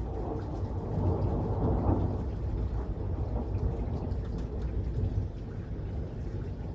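Rolling thunder from a thunderstorm, a long low rumble that swells about a second in and then slowly dies back.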